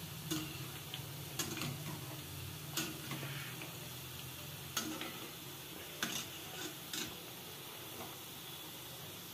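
Kurkure sticks deep-frying in hot oil, with a steady sizzle. A wire-mesh skimmer stirs them, giving several light, irregular metallic taps and clicks.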